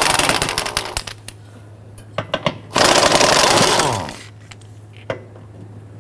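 Cordless power tool spinning a 16 mm socket to run out the transmission crossmember bracket bolts, in two bursts. The first fades out about a second in, and the second, just before the middle, winds down at the end. Between the bursts come light clicks of the socket and tool.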